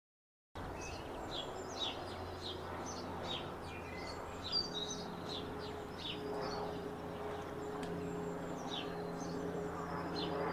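Small birds singing and chirping, many short quick notes from several birds, starting suddenly about half a second in, over a low steady hum.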